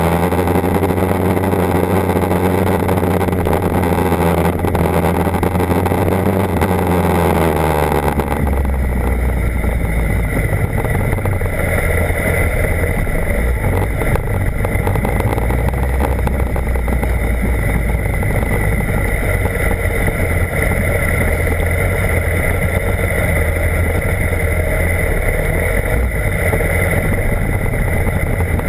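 BMW HP4's inline-four engine running under way, its pitch rising, holding, then falling off. About eight seconds in the sound changes abruptly to a steadier low rumble.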